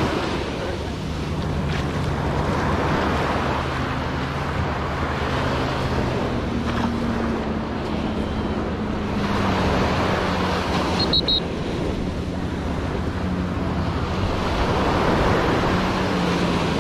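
Ocean surf breaking and washing up the beach, swelling and fading about every five seconds, with wind on the microphone. A low steady drone runs underneath.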